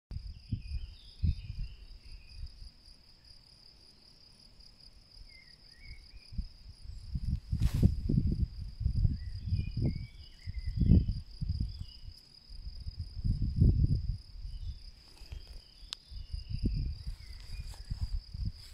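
Insects chirring steadily in a high, fast-pulsing trill, with short bird chirps now and then. Irregular low rumbling gusts come and go over it and are the loudest sound, strongest through the middle.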